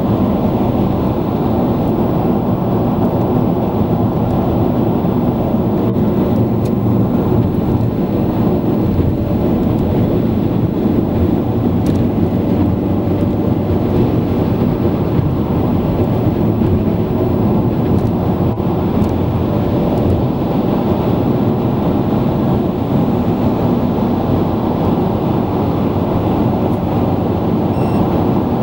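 Steady low rumble of tyre and road noise with the engine underneath, heard inside a car's cabin at motorway speed.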